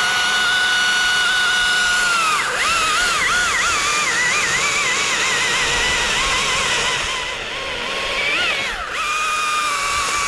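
Chainsaw at full throttle making a top cut through a tree trunk, its engine note wavering and dropping as the chain bites into the wood, then dipping once more about nine seconds in before picking back up.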